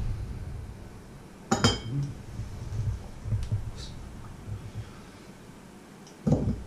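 Stainless-steel funnel and a tin can handled on a wooden board. There is one sharp metallic clink with a brief ring about a second and a half in, a few softer knocks after it, and another clink near the end.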